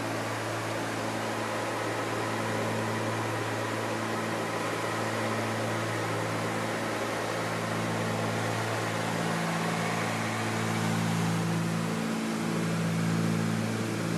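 Cabin drone of a Cessna 310Q's twin piston engines and propellers in cruise flight. It is a steady low hum made of several constant tones over a hiss of airflow, and the low tones waver slightly near the end.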